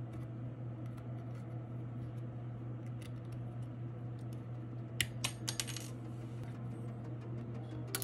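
A few light, sharp metallic clicks and a short clatter about five seconds in, and one more click near the end, from small metal repair tools handled against the opened smartphone, over a steady low hum.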